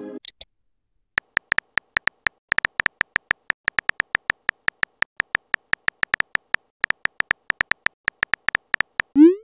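Phone keyboard typing clicks from a texting-app animation: a quick, uneven run of short taps as a message is typed out. Just before the end comes a short rising swoosh as the message is sent.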